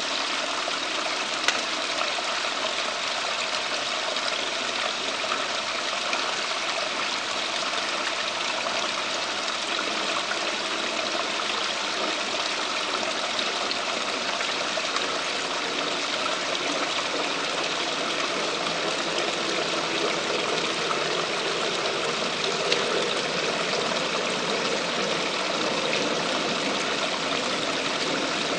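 Steady rush and trickle of running water from a backyard water feature, with a faint tick a couple of times.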